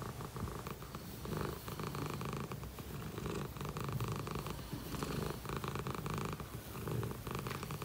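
A Li Hua (Dragon Li) tabby cat purring close up as it is scratched under the chin, a content purr that swells and eases with each breath.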